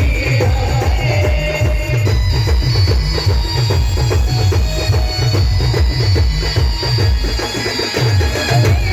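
Loud dance music with a fast, heavy bass-drum beat and a melody line over it.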